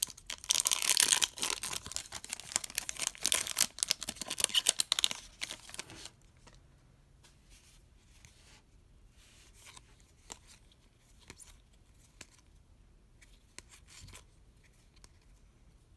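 A baseball card pack wrapper being torn open and crinkled: a loud, dense crackle for about six seconds. After that come only faint, scattered ticks as the cards are thumbed through by hand.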